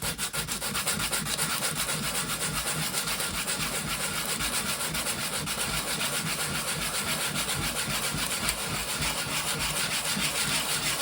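A small part of a Makita DTD152 impact driver's rotation selector being rubbed back and forth on sandpaper by hand, in quick, regular scratchy strokes, thinning it so the sticky selector will slide freely.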